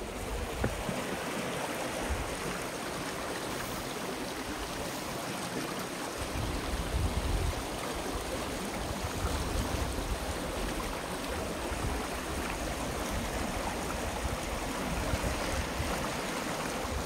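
Shallow rocky river (the Weld River) running and rippling over sandstone and boulders: a steady rush of flowing water.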